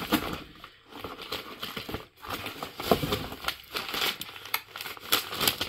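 Packaging crinkling and rustling as vacuum cleaner parts are unwrapped and lifted out of their box, with a few sharp clicks and knocks.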